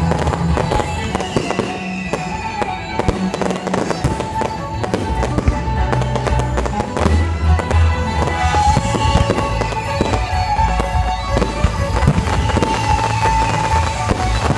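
Fireworks going off in a dense run of bangs and crackles throughout, over loud music for the show.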